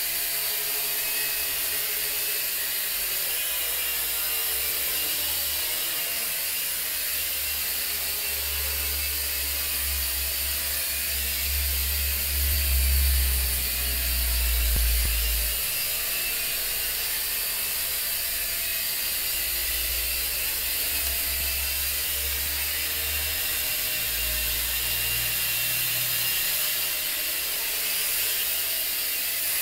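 Toy quadcopter's four small electric motors and propellers buzzing with a steady high whine as it hovers and moves about. Bouts of low rumble come and go around the middle and again near the end.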